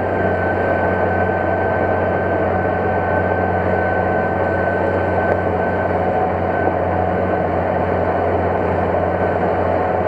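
New Holland T7050 tractor's six-cylinder turbo-diesel engine running steadily under load while pulling a plough, with a thin high whine that fades out about two-thirds of the way through.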